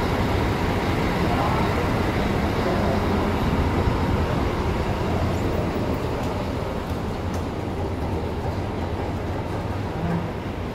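Steady city traffic noise, a low rumble of passing vehicles, easing off slightly towards the end.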